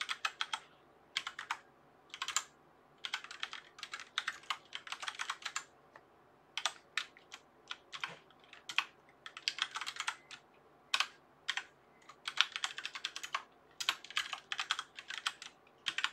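Typing on a computer keyboard: quick runs of keystrokes in irregular bursts, separated by short pauses.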